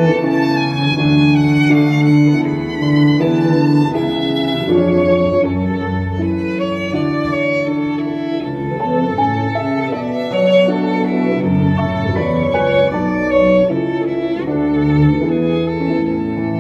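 Live violin and double bass duo: the violin plays a moving melody over long bowed notes on the double bass.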